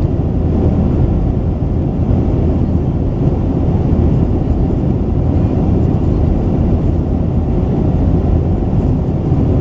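Steady cabin noise inside a Boeing 737-900ER in flight: the even, deep rumble of its CFM56-7B engines and the airflow over the fuselage, unchanging throughout.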